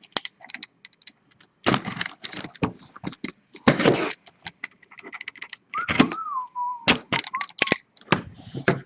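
A sealed cardboard shipping case of card boxes being opened: cardboard and packing tape tearing and rustling, with many sharp crackles and clicks. About six seconds in there is a short wavering squeak.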